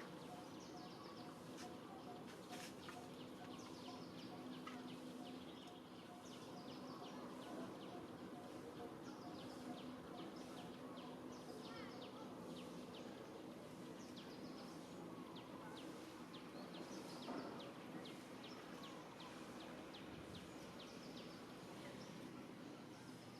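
Faint outdoor ambience: many short high chirps repeating throughout, with a quick pulsing note for about the first nine seconds over a steady low hum.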